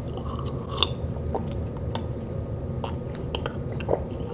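A man chewing a mouthful of leftover salmon and rice, with scattered short wet mouth clicks over a steady low background hum.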